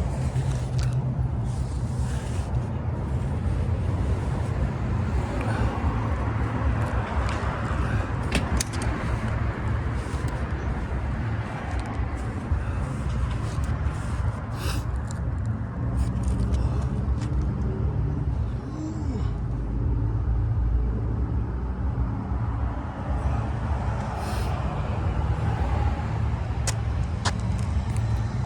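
Car on the road: a steady low engine and road rumble, with a few faint clicks now and then.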